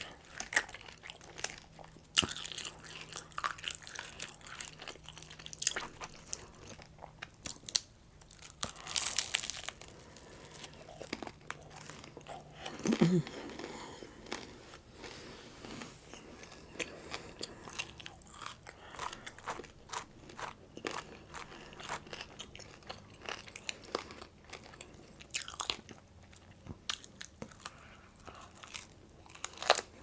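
Close-miked eating: irregular crunchy bites and chewing, with louder clusters of crunching now and then, and a brief sound of voice about thirteen seconds in.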